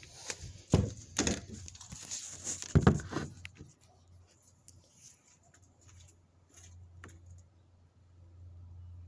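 A string of short knocks and rustles, the loudest about a second in and just before three seconds in, then a faint low steady hum.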